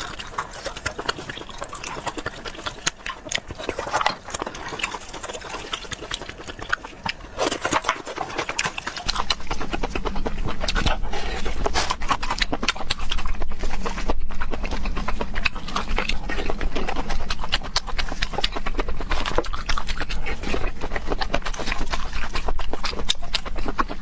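Close-miked mukbang eating sounds of field snail meat: rapid wet smacking, sucking and chewing clicks. About nine seconds in a low steady rumble joins and the sound gets louder.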